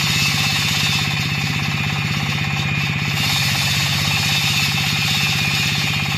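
38 HP diesel engine of a tracked concrete floor saw running steadily under load, with a rapid, even firing beat, while its large diamond blade wet-cuts the concrete slab with a steady grinding noise.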